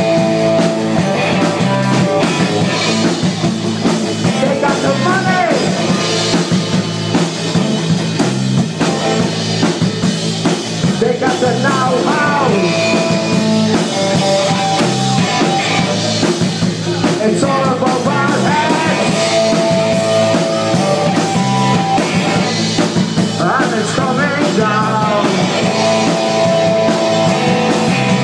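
A live rock band playing: drums and bass keeping a steady beat, electric guitar, and held keyboard notes. A man sings short phrases every few seconds over it.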